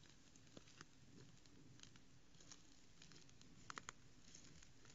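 Faint crackles and rustles of red deer stags stepping and grazing on the leaf-littered forest floor, over a low steady hiss; a quick run of three sharper clicks comes shortly before the end.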